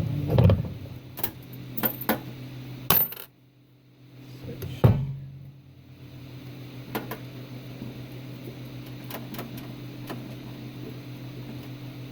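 Several sharp metallic clicks and clinks, like small metal parts being handled, over a steady low hum. The hum drops out briefly about three seconds in, followed by one more knock, then runs on alone.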